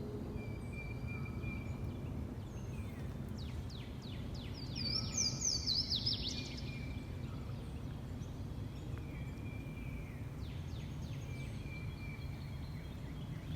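Wild birds singing over a steady low rush of background noise: repeated thin whistled notes and downward-sweeping calls, with a louder run of quick falling notes about five seconds in.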